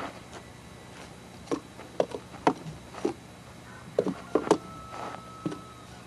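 Irregular short strikes and thuds as two men stab and slash at a dummy made of rubber tyres with training knives, about a dozen hits in six seconds, mixed with short grunts.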